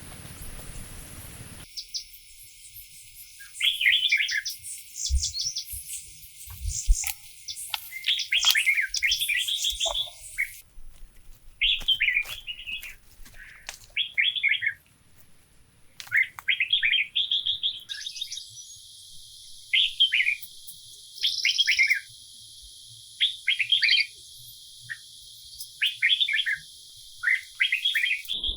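Small songbirds chirping in short twittering phrases, a new phrase every second or two.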